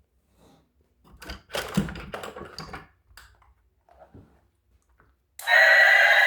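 Clicks and rattles of hard plastic toys being handled, densest for a couple of seconds, then a few lighter knocks. Near the end a loud, steady electronic sound with several held tones starts abruptly.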